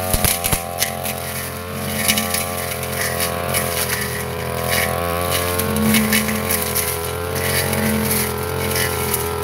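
Backpack brush cutter's small petrol engine running under load as its blade cuts through grass and thin brush. The engine speed rises and dips slightly, with a few sharp ticks near the start as stems and debris strike the blade.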